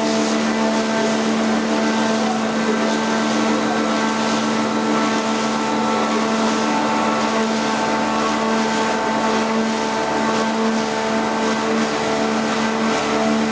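Electric log-rounding machine running: a steady hum with a constant hiss over it, unchanged throughout.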